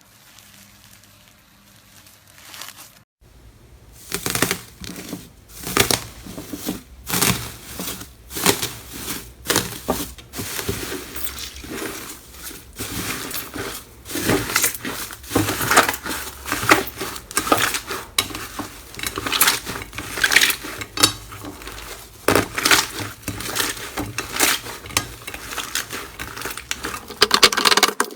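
Slime being squeezed, pressed and poked by hand, giving a dense run of sticky clicks, pops and crackles. It starts about three seconds in after a quieter stretch.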